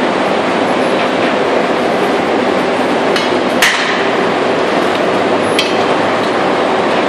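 Steady loud running of metal-casting machinery, with a few sharp metallic clanks of metal striking metal, the loudest about halfway through and a ringing one soon after.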